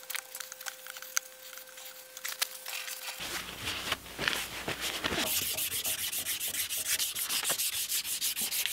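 A small hand wire brush scrubbing the end of a steel shaft, with light scratching and clicks. From about five seconds in, an abrasive cloth strip is pulled back and forth around the shaft in quick, even strokes, polishing it clean.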